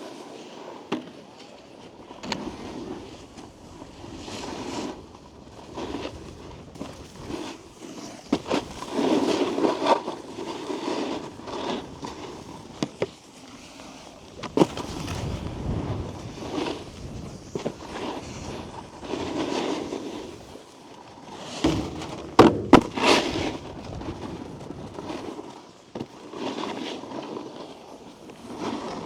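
Snowboard edges scraping and carving over snow in swelling surges, with a few sharp knocks, one about 15 seconds in and a cluster around 22 to 23 seconds in.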